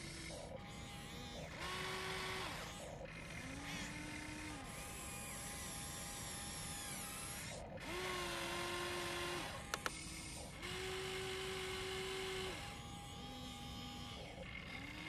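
Electric motors of a Huina RC excavator whining in a series of short runs as the boom, arm and bucket move. Each run starts and stops abruptly, its pitch rising and falling. Two quick clicks come about two-thirds of the way through.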